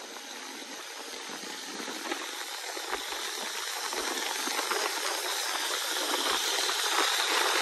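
Moving-traffic noise beside a running bus: a steady rushing hiss of tyres and wind that grows louder throughout, with a few faint rattles and clicks.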